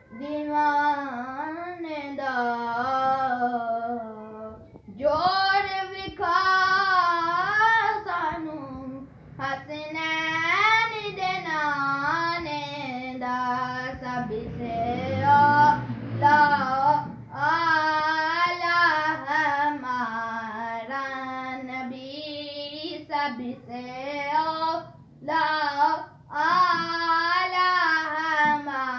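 A boy singing an Urdu naat unaccompanied, in long phrases whose pitch wavers and bends in ornaments, with short breath pauses between them.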